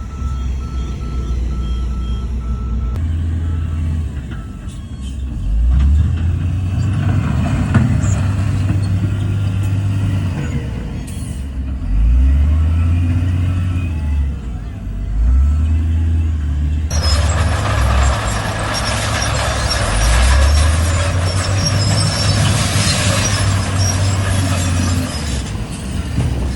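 Diesel engines of heavy trucks and earthmoving machines running, revving up and dropping back several times. In the second half a loud hiss lasts about eight seconds.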